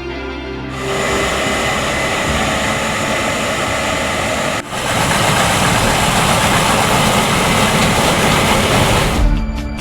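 Case IH 7240 Axial-Flow combine harvester running at work, a loud steady roar of engine and threshing machinery. It comes in about a second in and is broken by a brief drop near the middle.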